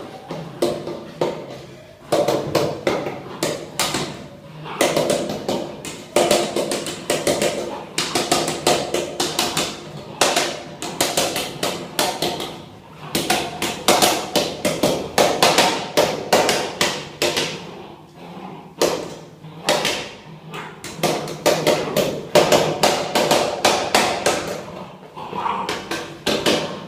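Repeated knocking and banging in quick bursts of several strikes, with short pauses between the bursts.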